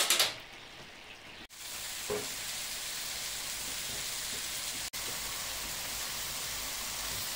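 Seafood paella bubbling and sizzling in a wide paella pan over a gas burner, a steady hiss of the broth cooking down into the rice in its last minutes. It gets louder about a second and a half in, after a brief sharp noise at the very start.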